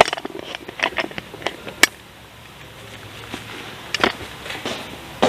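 Light clicks and crinkles of plastic packaging being handled. There is a run of sharp clicks in the first two seconds, the sharpest near two seconds in, then a quieter stretch and another short cluster about four seconds in.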